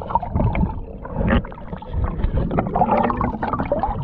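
Muffled underwater gurgling and churning of river water with bubbles, stirred by an Asian small-clawed otter swimming past a submerged camera. Scattered bubbly clicks ride on a low, irregular rush of water.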